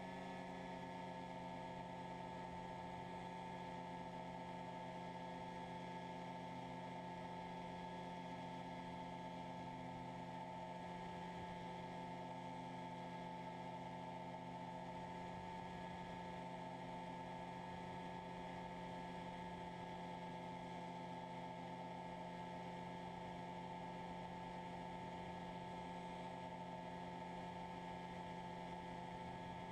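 Freshly overhauled Rotax 503 two-cylinder two-stroke engine of an ultralight, droning steadily at a constant pitch in cruising flight.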